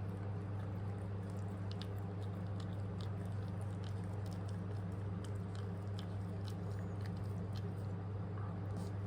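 Puppy eating, with small irregular mouth clicks, over a steady low hum.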